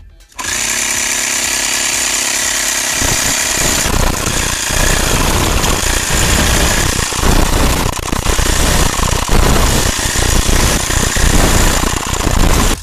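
A 12 V portable mini air compressor, a small electric motor driving its piston through gears, switches on about half a second in and runs loud and steady. About three seconds in its sound turns rougher and more uneven. It is running again after its motor was repaired.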